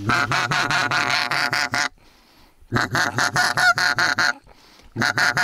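Goose calls: fast runs of honking clucks, about six or seven a second, each run lasting one and a half to two seconds with short pauses between, three runs in all.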